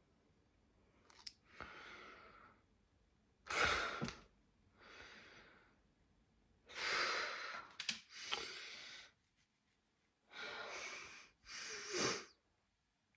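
A woman breathing heavily and sighing close to the microphone: several separate breathy exhalations of about a second each, with quiet pauses between them.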